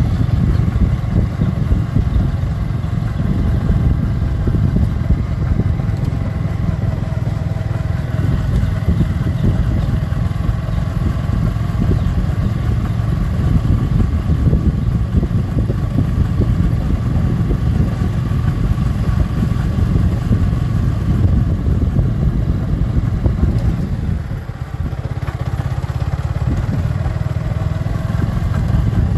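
Motorcycle being ridden, its engine running steadily under a dense rumble of road and wind noise. The level dips briefly near the end.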